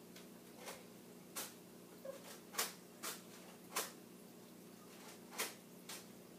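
Faint, irregular small clicks and taps, about eight of them scattered unevenly, over a steady low electrical hum.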